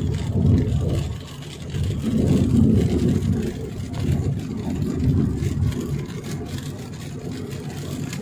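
Road and engine noise heard inside a moving car's cabin on a wet road: a low rumble that swells and dips every second or two.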